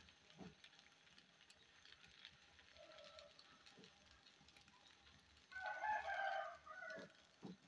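Faint soft scrapes of a silicone spatula stirring beaten eggs in a frying pan. About five and a half seconds in comes a louder pitched bird call lasting about a second and a half.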